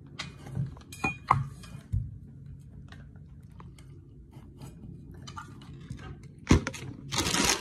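Someone drinking from an insulated water bottle through its spout lid: soft swallowing and mouth sounds with a few sharp clicks from handling the lid and bottle, then a louder knock and a short rush of noise near the end.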